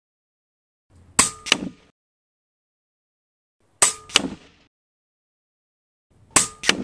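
Taipan Veteran Long regulated bullpup PCP air rifle fired three times, about two and a half seconds apart. Each sharp shot is followed about a third of a second later by the smack of the pellet hitting the downrange target.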